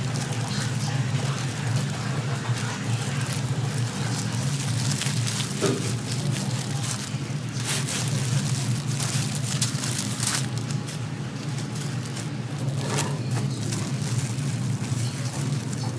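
A steady low hum, like running machinery, with a few sharp clicks and clatters in the middle and latter part.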